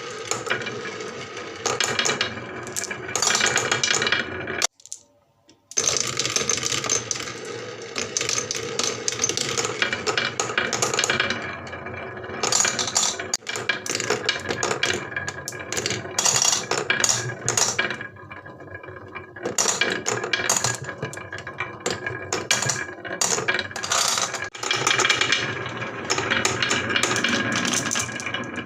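Marbles rolling and clattering along a wooden marble run, a dense run of small clicks and rattles, with a brief drop to near silence about five seconds in.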